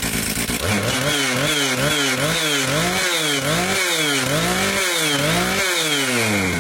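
Johnson Red CS 2255 55cc two-stroke chainsaw engine running on fuel spiked with nitromethane: it idles briefly, then is revved up and down repeatedly in quick succession, the pitch rising and falling about every two-thirds of a second. It still sounds like a normal-running saw at this dose.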